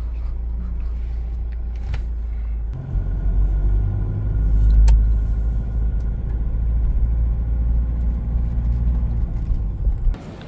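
Car engine and road rumble heard from inside the cabin, growing louder about three seconds in as the car gets moving, with a single sharp click about halfway through.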